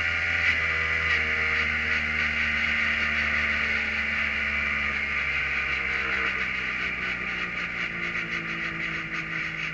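Kohler engine of a Prototype 1 race car running at low revs in first gear, its note slowly dropping as the car slows, under a steady hiss from the wet track.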